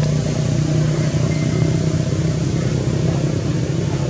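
Steady low drone of a running motor.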